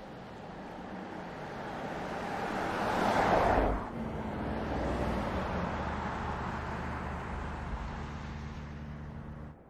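2018 Mercedes-Benz S 560 Cabriolet's twin-turbo V8 driving toward and past: the engine and tyre noise build to a peak about three and a half seconds in, drop sharply as the car goes by, and then trail away as it drives off. The sound cuts off near the end.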